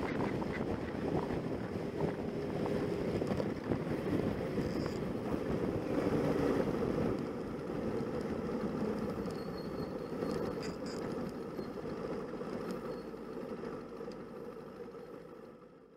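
A motorcycle underway at road speed: engine and wind noise rushing over a bike-mounted camera, fading out near the end.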